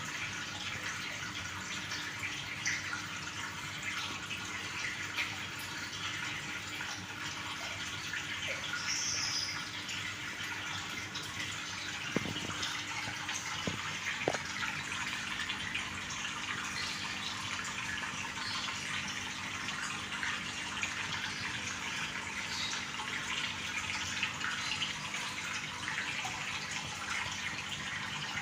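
Water running and splashing steadily, with small drips and crackles, under a faint steady hum. There are a couple of light knocks about halfway through.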